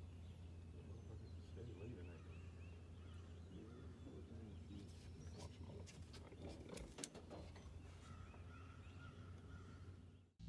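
Near silence with faint bird calls: short chirps and, near the end, a held whistled note, over a low steady hum and a few light clicks.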